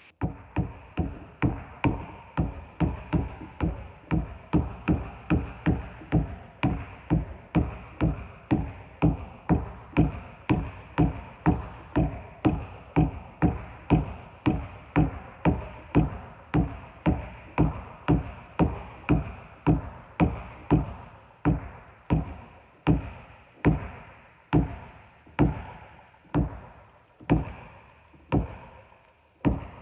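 Basketball dribbled on a wooden gym floor: a steady run of bounces, about two or three a second at first, slowing to about one a second near the end.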